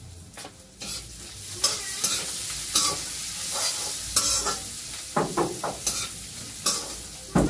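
Food frying in a metal wok on a gas burner, sizzling steadily while a metal spatula stirs it, scraping and knocking against the pan again and again. The sizzling rises about a second in as the stirring starts.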